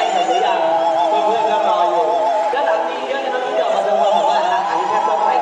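Music with a high singing voice holding long notes with a strong, wide vibrato, opera-like.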